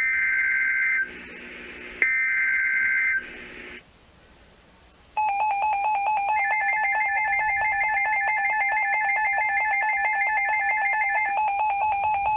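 Emergency Alert System tones: two harsh, buzzy data bursts of the digital alert header, each about a second long and a second apart, then a short pause and the steady alert attention tone from about five seconds in.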